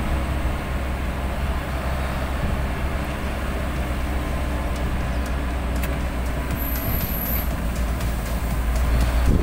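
A road vehicle driving steadily along a wet concrete road: continuous engine and road rumble with tyre noise, heard from the vehicle itself.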